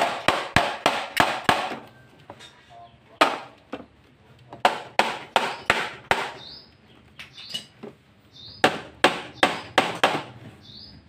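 Hammer striking the aluminium edge trim on a wooden hardcase, driving it onto the frame. The blows come in three runs of about three a second, with a single blow between the first two runs.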